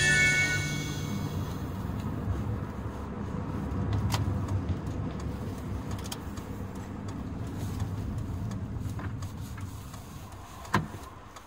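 Road and engine noise inside a moving car's cabin, a steady low rumble, with the last of the song's music fading out in the first second or so. A few light clicks, the sharpest near the end, as the sound fades down.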